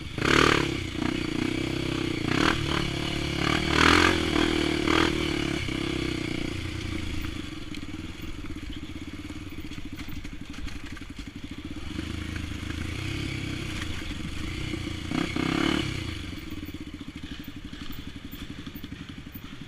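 Single-cylinder four-stroke trail-bike engine of a Honda XR 250 Tornado, bored to 280cc with an aftermarket exhaust, blipped in several short revs over the first few seconds, then running at low revs with its firing pulses audible, and revved once more about three quarters of the way through.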